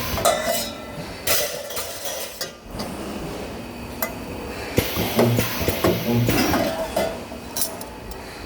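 Metal clanking and clinking as sheet-metal parts are handled at a spot-welding station, with repeated sharp knocks and a short low hum about five seconds in.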